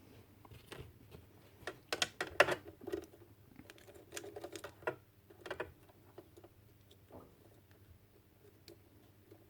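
Irregular small clicks and taps of plastic radio parts being handled and fitted back together, a few at a time with short gaps, busiest around the middle.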